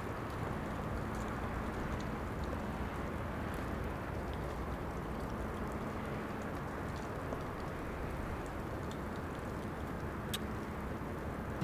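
Steady background ambience: a dull, even hiss with a faint low hum, broken by a few light clicks, one a little sharper near the end.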